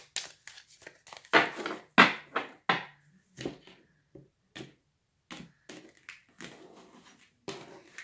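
Tarot cards being handled on a wooden table: a run of irregular card slaps, riffles and taps as the deck is shuffled, cut and set down, with a brief pause about five seconds in before more card handling.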